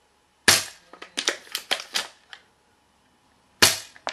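Echo1 ASR spring bolt-action airsoft sniper rifle firing two shots about three seconds apart, each sharp crack followed by a quick string of smaller clicks and taps.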